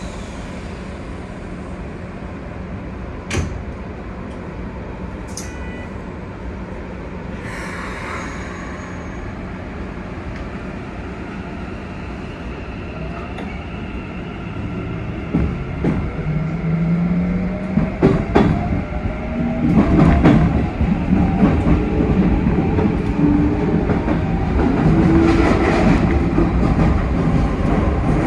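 Keikyu 1000 series electric train pulling away from a stop: after a steady stretch with a click and a short hiss of air, its Mitsubishi VVVF inverter starts, about halfway through, a whine that rises in steps as the train accelerates. The wheels clack over the rail joints.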